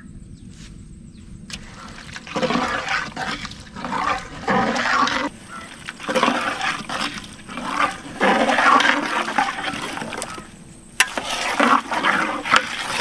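Goat head pieces, onion and spices sizzling in a cooking pot. The sizzle comes in several surges a few seconds long.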